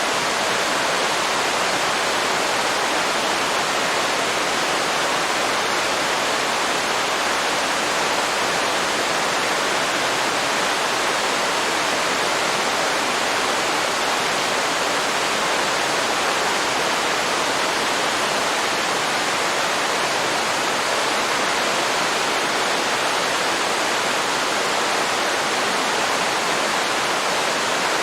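Waterfall pouring steadily into a river, a constant even rush of falling water.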